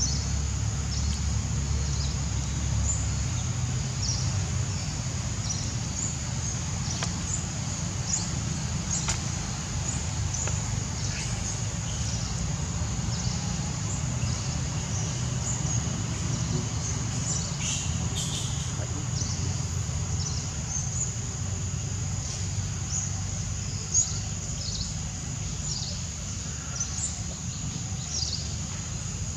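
Forest ambience: a steady low rumble under a steady high insect-like hum, with short high chirps about once a second.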